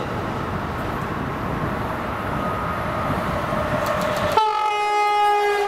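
Rumble of a passing train on the tracks, then about four seconds in an Amtrak Avelia Liberty high-speed trainset sounds its horn in one steady blast that starts suddenly and holds.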